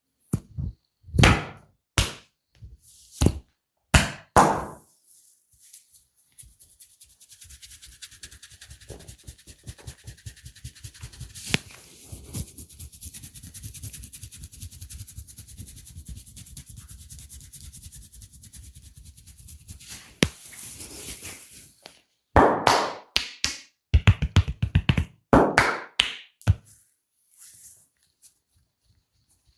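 Hand slaps and taps of a barber's massage. A few sharp slaps come first, then a long run of fast, light tapping, then another cluster of louder slaps near the end.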